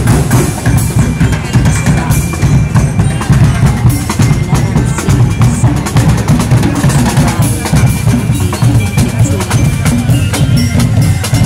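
Parade drum ensemble playing loud continuous percussion: deep bass drums and big barrel drums pounding a dense beat under sharp, rapid strikes.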